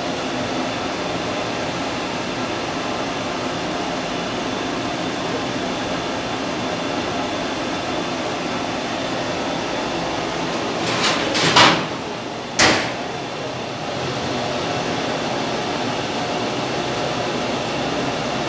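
Two high-pressure LPG burners of a commercial gas stove burning with a steady rush of gas and flame. About two-thirds of the way through there is a quick cluster of knocks, then one more sharp knock a second later.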